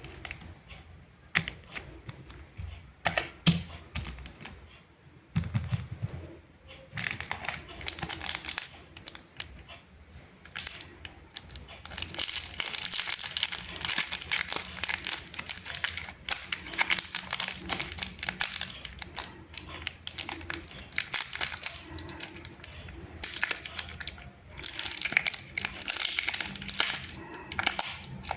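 Candy wrappers and packaging being handled, torn open and crinkled: scattered taps and rustles at first, then dense, continuous crinkling through the second half.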